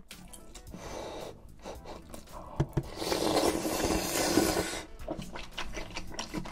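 Slurping spicy noodle soup (jjamppong): a soft slurp about a second in, then a longer, louder slurp of broth from about three seconds in lasting nearly two seconds. Small mouth and spoon clicks fall in between.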